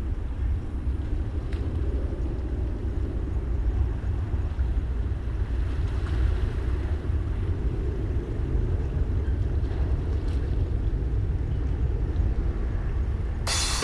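Steady low rumble of a jet airliner's engines climbing out after takeoff. Piano music comes in right at the end.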